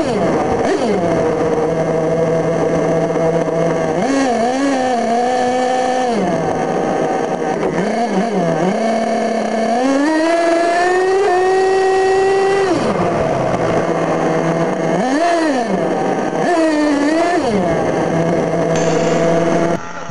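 An RC monster truck's small two-stroke engine running close up, revving up and down again and again between stretches at a steady lower pitch, with one longer held rev in the middle. It cuts off abruptly near the end.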